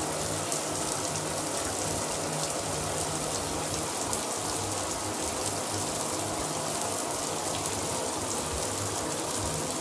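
Shower running steadily, water spraying and splashing in a constant hiss with fine droplet patter.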